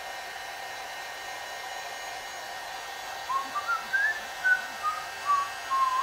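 Electric heat gun blowing steadily. From about halfway through, a man whistles a short tune of about eight notes over it.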